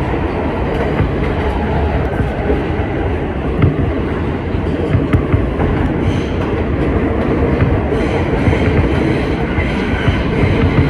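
Kawasaki R160B subway train running at speed on the track: a loud, steady rumble of wheels on rail with occasional clicks over rail joints. A faint high wheel squeal comes in during the later part.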